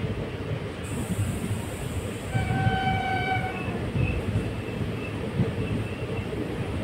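A train running with a steady low rumble. About two seconds in, a train horn sounds one held note for just over a second.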